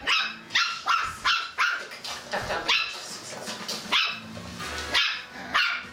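Schipperke puppy yapping at a German Shepherd in play: a string of about nine short, high-pitched barks at uneven intervals.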